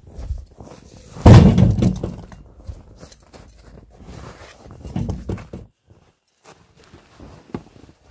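Birch firewood logs thrown onto a metal-framed sled with wooden slats: a loud, heavy thunk about a second in, a quieter knock around five seconds, and footsteps in snow in between.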